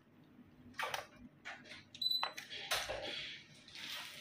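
Handling noise on a workbench: several sharp clicks and knocks as things are picked up and set down, a short high electronic beep about two seconds in, then soft rustling.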